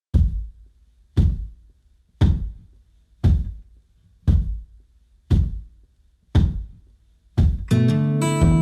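Heavy thumps at an even pace of about one a second, eight in all, each dying away quickly. Plucked guitar music comes in near the end.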